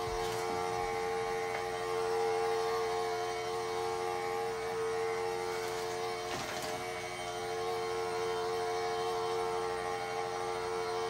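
Samsung cordless stick vacuum with its twin-pad spinning mop head running with a steady mechanical whine, pitch unchanging, with a faint knock about six and a half seconds in.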